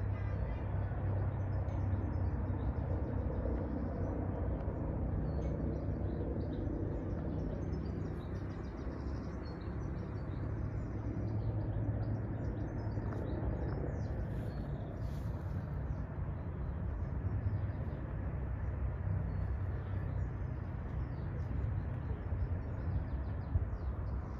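Distant helicopter giving a steady low drone, with small birds chirping over it.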